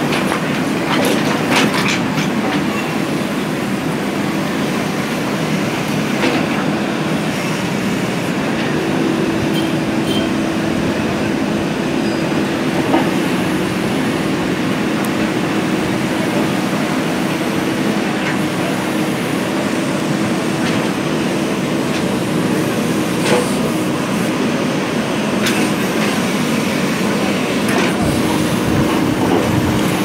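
JCB 3DX backhoe loader's diesel engine running steadily under load as the backhoe digs, with a few sharp knocks of the bucket against stones.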